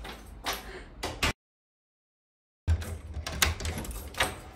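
Two sharp knocks as an interior wooden door is handled, then dead silence for about a second, then a door's metal lever handle and latch clicking and rattling with low thuds as the door is worked open.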